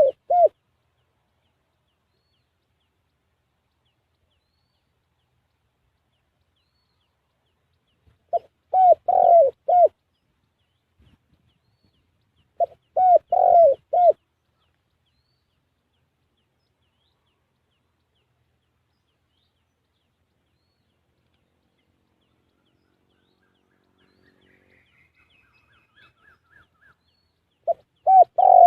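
Spotted dove cooing: short phrases of four or five quick coos, repeated with long silent gaps between them. Faint higher chirps from another small bird come just before the last phrase.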